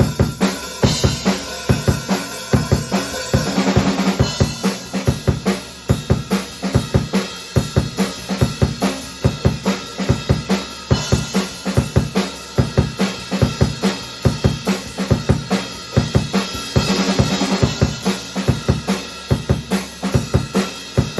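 A drum kit played alone at a brisk, steady rock beat: kick drum, snare and cymbals hit after hit, with no backing music. Two short fills break the beat, about four seconds in and again about three-quarters of the way through.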